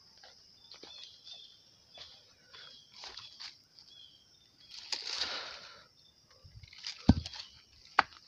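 Footsteps and rustling through grass and weeds, with handling bumps on a phone: a longer brush of vegetation about five seconds in and two sharp knocks near the end.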